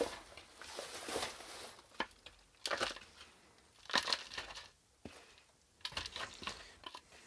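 Potting soil and a spider plant's root ball being handled: a string of short, separate scrunching and rustling sounds.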